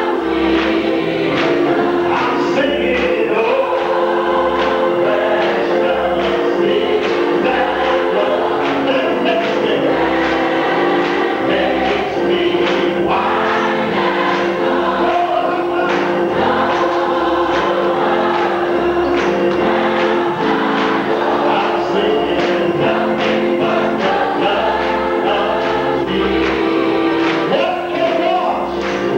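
Gospel church choir singing with the choir clapping along.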